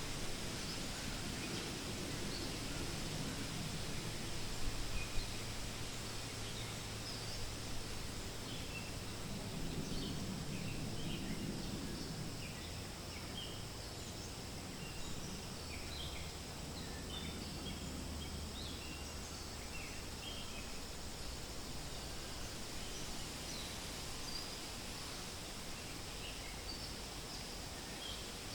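Wind rustling through forest leaves as a steady hiss, with many short, high bird chirps scattered throughout.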